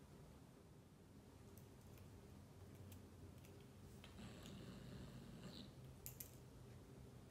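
Faint clicks and taps as a Bengal kitten bats and mouths a small plastic spring toy on a concrete floor. About four seconds in, a faint high-pitched sound lasts about a second and a half.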